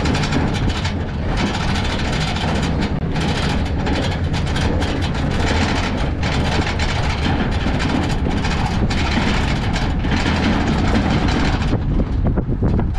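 Wooden race cart rolling on pavement: a steady rumble from its wheels, with rattling and knocking from the wooden body.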